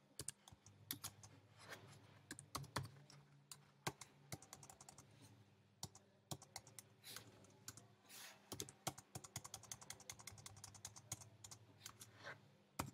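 Computer keyboard being typed on: faint, irregular keystrokes coming in quick runs with short pauses between them, over a faint steady low hum.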